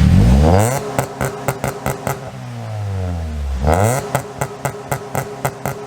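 An Acura Integra's B-series four-cylinder is blipped twice through a catless exhaust with a Vibrant Ultra Quiet resonator. Each time the revs climb quickly and fall away, with a string of sharp crackles as they drop.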